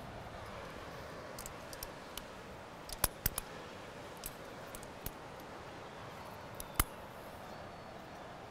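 A handful of sharp metallic clicks and clinks from climbing gear (carabiners and quickdraws on a harness) as a climber moves up the rock. The loudest is a quick cluster of three about three seconds in and a single click near the end, over a steady low hiss.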